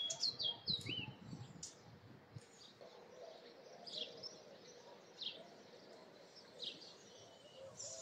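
Small birds chirping: short, high notes that fall quickly in pitch, repeated every second or so over faint steady outdoor background. A few soft, dull thumps come in the first couple of seconds.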